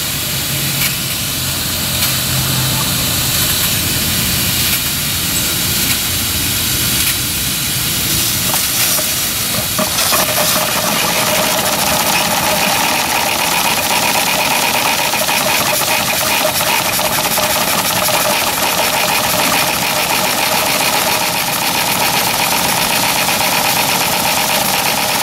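Clishay live steam logging locomotive running under steam, its cylinders exhausting in a rapid chuffing rhythm with steam hiss, the cylinder petcocks still open so it runs rough. About ten seconds in, a steady hissing tone joins and holds.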